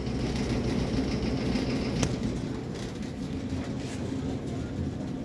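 Top-loading Amana washing machine in its final drain-and-spin cycle, the drum spinning up with a steady low rumble. A higher hiss runs for about the first two seconds and ends with a sharp click.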